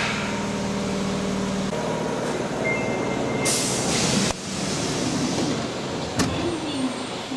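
Subway train noise at the platform and on board: a steady hum, a short high electronic beep about three seconds in, then a brief burst of hiss. After an abrupt break, the running noise inside the carriage with a wavering whine.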